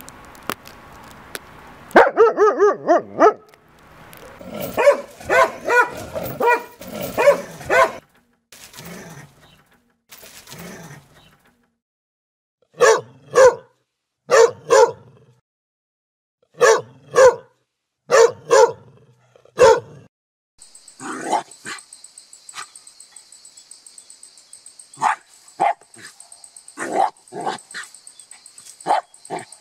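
Dogs barking in short runs of sharp barks, at first in a quick flurry, then mostly in pairs. In the last third, fainter barks and yips come over a steady high hiss.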